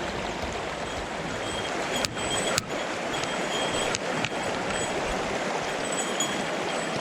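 Mountain stream water rushing over rocks, a steady hiss, with a few sharp clicks.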